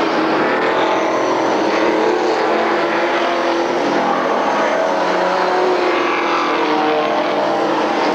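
A pack of stock cars racing around a short oval track, with many engines running hard at once. Several engine pitches are layered in a loud, steady drone that never lets up.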